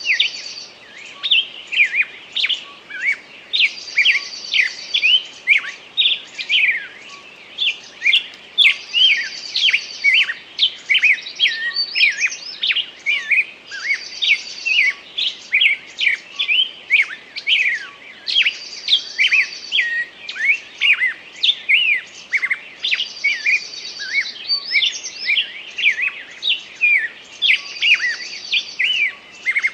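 Forest birds singing: a steady stream of quick, falling chirps, with one bird repeating a short, high trill about every four to five seconds.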